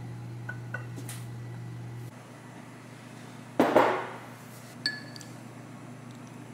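A ceramic soup bowl set down on a table with a clatter, then a metal spoon clinks against it once with a short ring. A steady low hum stops about two seconds in.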